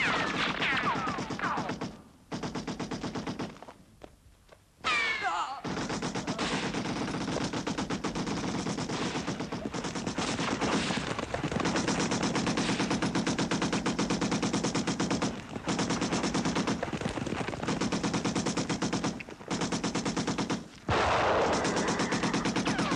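Belt-fed machine gun firing long rapid bursts with short breaks, mixed with other gunfire. Horses whinny near the end.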